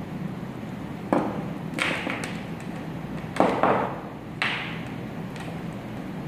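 Handling noise from a plastic power adapter brick and its cords being picked up and set down on a wooden tabletop: four short knocks and rustles, the loudest about halfway through, over a steady low hum.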